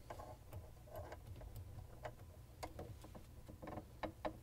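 Faint, irregular small clicks and handling noises as a ground wire's spade connector is worked onto the terminal of a refrigerator evaporator fan motor by gloved hands.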